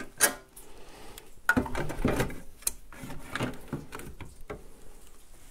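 Clicks, knocks and rustling as a lithium battery is handled and pressed down into a snowmobile's battery box; the sharpest knock comes just after the start, with a run of smaller knocks through the middle.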